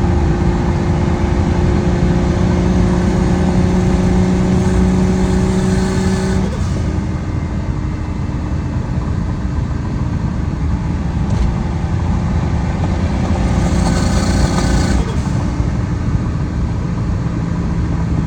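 Mk3 Toyota Supra's engine running under way with road noise. Its note climbs slowly for about six seconds, then drops and holds steady.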